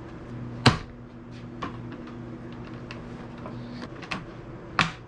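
Dirt bike's plastic side panels being handled and pressed back into place: scattered clicks and knocks of plastic, the two sharpest one under a second in and one near the end, over a steady low hum.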